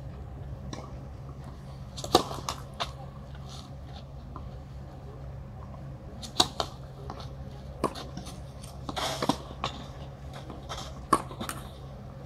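Tennis ball being hit back and forth with rackets on a clay court: sharp pops a couple of seconds apart, the nearer player's strokes louder than the far ones. A steady low hum runs underneath.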